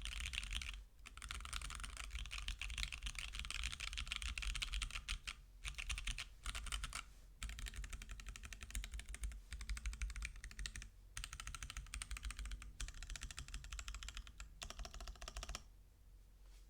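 Fast typing on a Reviung41 40% keyboard with lubed C³ Kiwi tactile switches, an FR4 plate and Ducky PBT keycaps: a dense run of keystrokes broken by a few short pauses, stopping about a second before the end.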